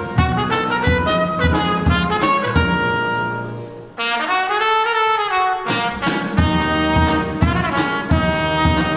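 Live jazz: a trumpet plays a melody over keyboard and drum kit. About three seconds in the band drops away and the trumpet holds a bending note almost alone for about two seconds, then the drums and keyboard come back in.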